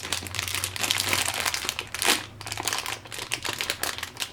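Packaging crinkling and rustling as it is handled and opened, a run of quick crackles with a louder one about two seconds in.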